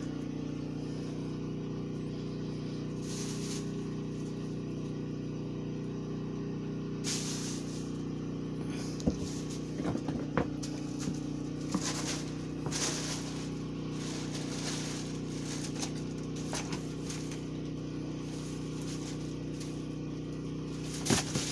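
Steady low machine hum, with a few light clicks and rustles scattered through it, mostly in the middle and again near the end.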